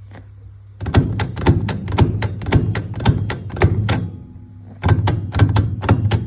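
Aeroflow Nitro ratchet shifter lever being worked through its gears: quick runs of sharp ratcheting clicks, about six a second, with a short pause about four seconds in, over a low steady hum.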